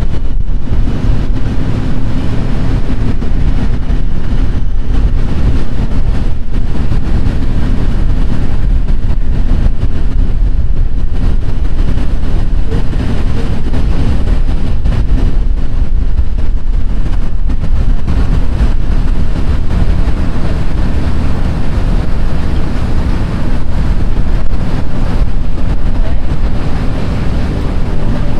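Steady low rumble of wind buffeting the microphone, over water churning from a passing paddle steamer's stern paddlewheel.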